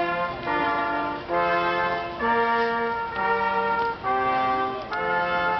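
Brass band playing a series of held chords, each lasting about a second, with short breaks between them.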